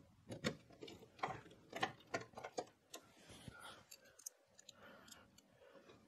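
Faint, irregular metallic clicks of a small screwdriver turning the screws that hold a Mini-ITX motherboard to the PC case's standoffs, two or three a second, giving way about halfway through to quieter handling noise.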